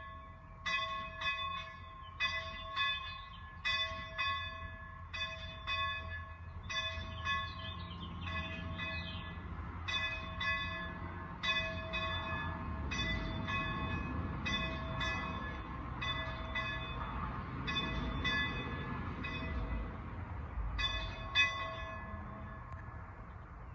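Single church bell ringing, its strokes coming in close pairs about every second and a half, each note ringing on with clear overtones; the ringing stops about 22 seconds in. A low rumble swells underneath through the middle.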